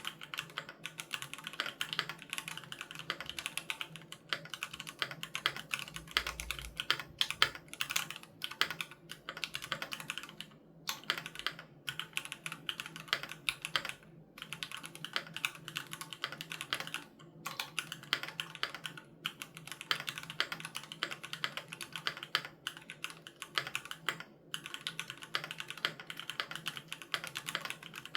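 Steady fast typing on a Keychron Q3 Knob mechanical keyboard with Gateron G Pro Red linear switches: quick runs of many keystrokes a second, with short pauses between bursts.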